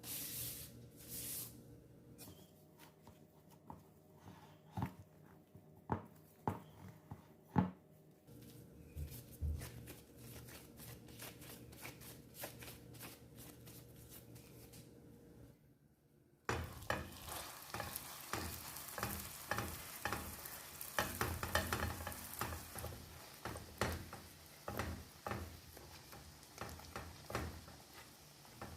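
Potato-dough pie frying in olive oil in a pan: a soft sizzle and crackle with taps and clicks of a utensil against the pan. About halfway through the sizzle suddenly becomes louder and busier.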